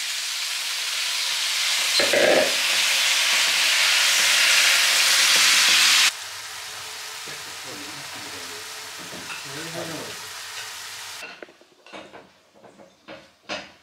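Fresh spinach sizzling and spitting in a hot frying pan as it is tipped in and stirred with a plastic spatula. The sizzle drops suddenly to a quieter level about six seconds in, and stops a little after ten seconds. A run of light clicks and knocks follows near the end, like utensils against a pan.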